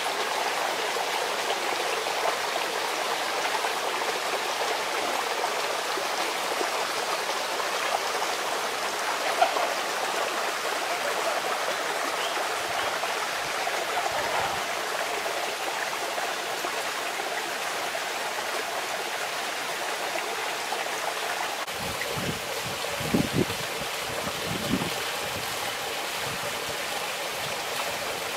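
Steady rush of running water from a garden fountain and water channel, splashing without a break. A few short low bumps come in near the end.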